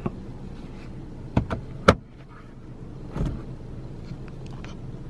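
A few sharp plastic clicks and a softer knock inside a quiet, parked car cabin, from hands working the interior fittings around the roof grab handle.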